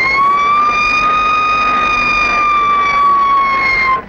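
Great Western Railway automatic train control siren sounding in a steam locomotive cab: one loud, steady note that sags slightly in pitch and cuts off suddenly near the end. It is the warning that the signals are at danger, given as the train passes the track ramp, ahead of the system bringing the train to a standstill.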